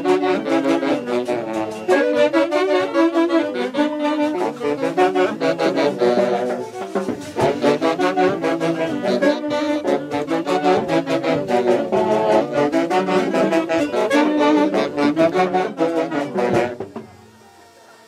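Band music led by saxophones, with several instruments playing a melody together; it fades out about a second before the end.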